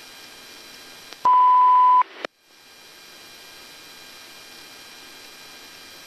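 A single steady high beep, just under a second long, about a second in, over the steady hiss of a radio channel; a click follows and the hiss briefly drops out before returning.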